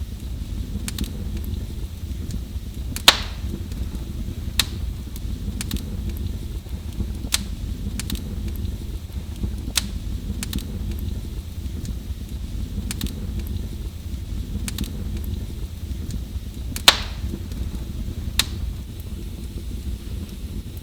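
Wood fire burning in a fireplace: a steady low rumble of flames with scattered sharp crackles, and two louder pops, one about three seconds in and one late on.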